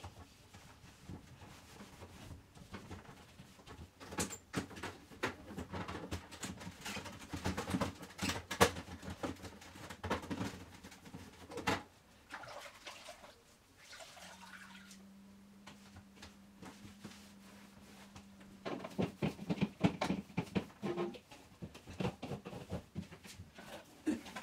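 Irregular knocks, clicks and rustling of things being handled, with a steady low hum for a few seconds past the middle.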